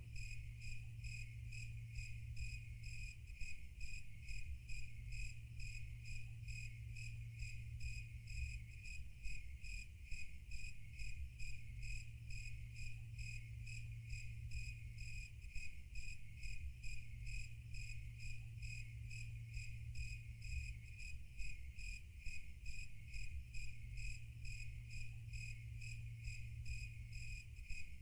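Crickets chirping in an even, rapid rhythm over a low steady hum.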